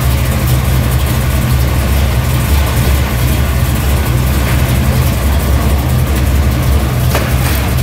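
1968 Chevelle SS's V8 engine idling steadily on a chassis dyno.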